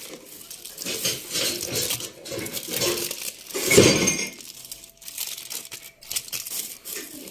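Aluminium foil crinkling and rustling in irregular bursts as it is opened by hand from around a tamal, the loudest crinkle a little past halfway.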